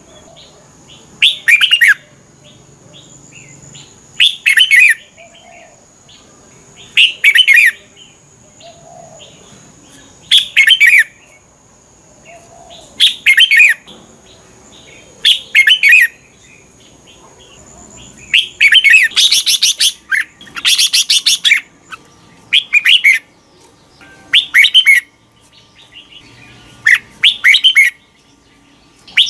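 Red-whiskered bulbul singing short, loud whistled phrases, one about every two to three seconds, with a quicker run of phrases about two-thirds of the way through.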